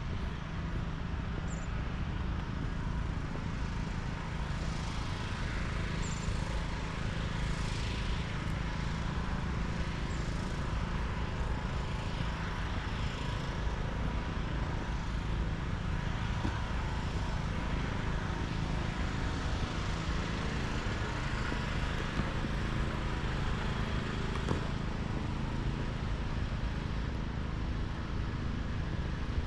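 Steady low outdoor background rumble with no clear events, and a few faint, short, high chirps in the first part.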